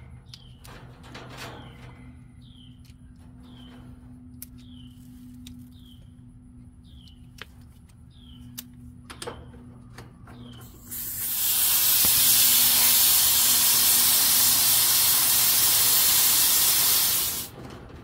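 R-22 refrigerant hissing out at a gauge hose connection on the heat pump's outdoor service valve as the hose goes on. It is a loud, steady hiss starting about eleven seconds in and lasting about six seconds, then cutting off sharply.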